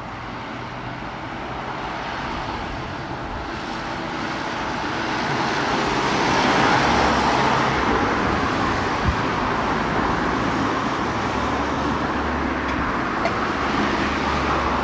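Road traffic on the street alongside: vehicles driving past with tyre noise and a low engine rumble, swelling to its loudest about six seconds in and staying up.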